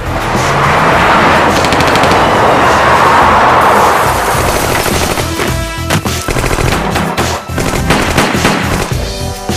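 Movie shootout soundtrack: a dense rush of noise for the first few seconds, then rapid bursts of automatic gunfire with bullet impacts, mixed over dramatic action music.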